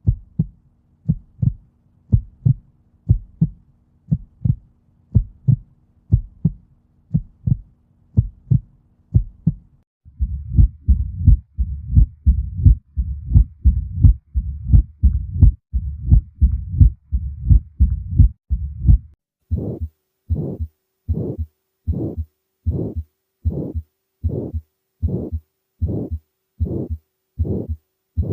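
Recorded heart sounds heard through a stethoscope, played as three examples in a row. First comes a clean lub-dub at about one beat a second. About ten seconds in it changes to a faster recording with a continuous rumble filling the gaps between beats, a murmur of a valve defect. About nineteen seconds in a third recording follows, with louder, evenly spaced beats.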